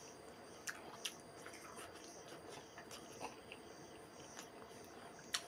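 Faint sounds of eating by hand: chewing, and a few light clicks and ticks as fingers mix and pick up rice on a banana leaf.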